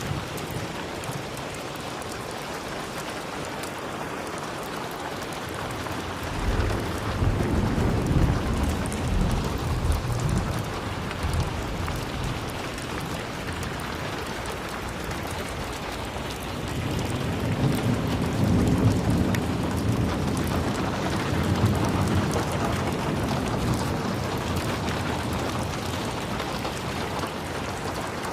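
Steady rain falling. Low rolling rumbles of thunder swell up twice, about six seconds in and again after about seventeen seconds, each lasting several seconds.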